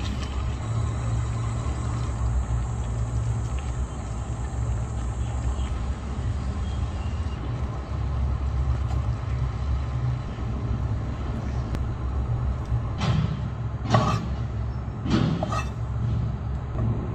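A steady low rumble throughout, with three or four sharp clinks about three-quarters of the way through, from eating utensils knocking against a bowl.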